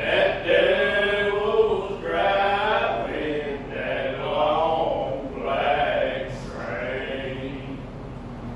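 Several male voices singing together in long, drawn-out notes.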